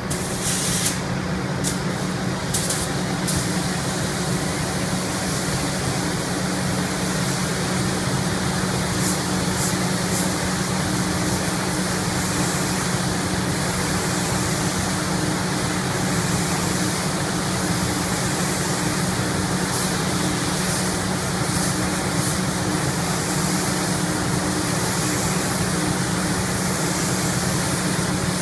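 Automotive paint spray gun hissing steadily as colour coat is applied, over a constant low hum. Short, sharper bursts of hiss come several times in the first few seconds, and again around the middle and later on.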